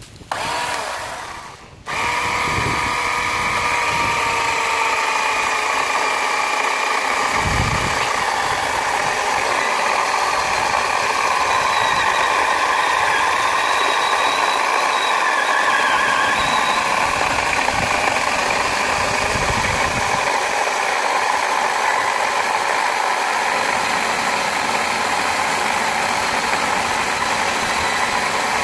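Scotts 24-volt cordless electric chainsaw cutting through a 9-inch oak log: a short spin-up right at the start, then from about two seconds in the motor whines steadily while the chain saws through the wood without struggling.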